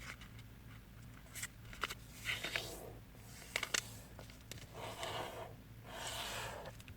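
Square origami paper being handled and folded, with soft rustling swishes and a few sharp crinkles and taps as the fold is lined up and creased.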